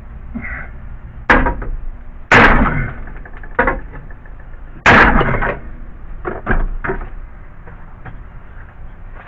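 Hammer blows on the steel radiator support cross frame of an '87 Crown Victoria, about seven strikes with a ringing tail, the two heaviest a few seconds apart. The hammering is straightening a dent to gain clearance between the fan and the shroud.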